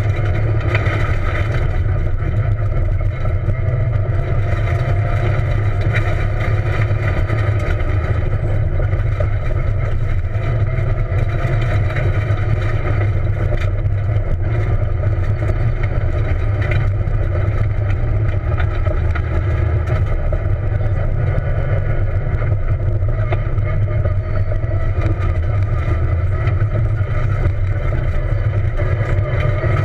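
Peugeot 207 rally car heard from inside the cabin while it drives a dirt road stage: the engine runs under steady load, its pitch drifting up and down a little, over a constant low road and drivetrain rumble.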